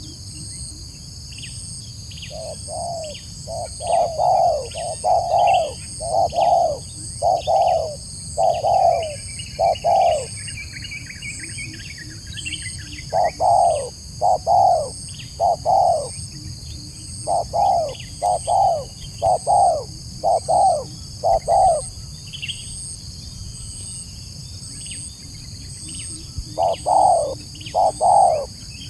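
Spotted dove (tekukur) cooing: runs of low, evenly spaced coo notes, about one or two a second, in several phrases with pauses between them. Small birds chirp faintly, and a steady high buzz, like insects, runs throughout.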